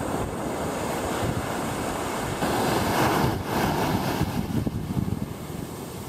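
Ocean surf washing onto a sandy beach, swelling louder about halfway through as a wave breaks, with wind buffeting the microphone.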